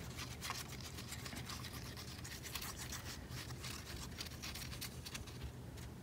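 Liquid glue bottle's spreader tip rubbed quickly back and forth over a paper strip, spreading glue: a faint, continuous scratchy scrubbing.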